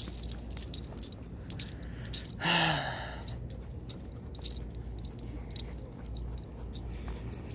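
Light metallic jingling and clinking, on and off, while walking on pavement, over a steady low rumble. About two and a half seconds in there is one short, louder voice-like sound that drops in pitch.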